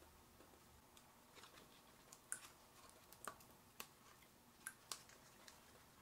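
Near silence with a few faint, scattered small clicks and ticks as fingers pick at the tape and plastic battery cable connector inside an opened laptop.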